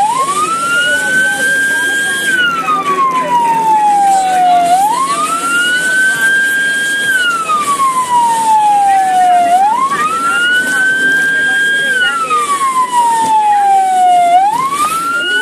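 Ambulance electronic siren in wail mode: the pitch rises over about two seconds, holds briefly, then falls slowly, repeating about every five seconds. Three full cycles sound, and a fourth rise begins near the end.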